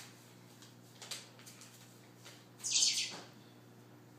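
A baby's short, high-pitched squeal about two and a half seconds in, sliding down in pitch at its end.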